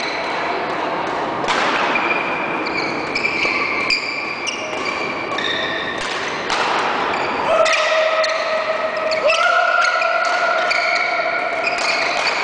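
Sneakers squeaking on a sports-hall court floor during a badminton rally, some squeaks drawn out for a second or more, with sharp racket hits on the shuttlecock, in a reverberant hall.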